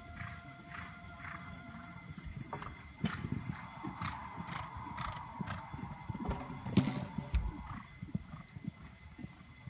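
Horse cantering on arena sand, with music playing over it.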